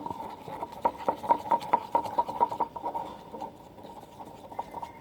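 Milk-glue slime being stirred in a small container, the stirrer clicking and tapping rapidly against the container. The tapping thins out after about three seconds.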